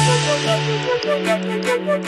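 Background music: held bass notes changing about once a second under a quick, repeating melody of short notes, with a hissing wash fading out over the first second.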